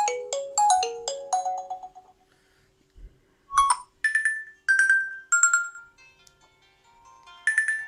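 Nokia 7 Plus stock ringtone previews played one after another on the phone: a bright melody of quick bell-like notes that cuts off about two seconds in, then a single chime, then three falling chime notes, and near the end a fuller sustained tone with several notes at once.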